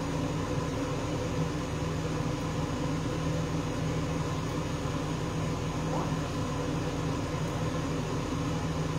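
Steady hum of a fan motor running, a constant drone with a low buzz over an even hiss.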